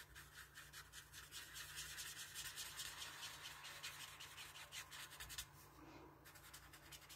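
A Stampin' Blends alcohol marker's tip rubbing on cardstock in quick short strokes as she colours around a stamped owl's eyes. The faint scratching stops about five and a half seconds in.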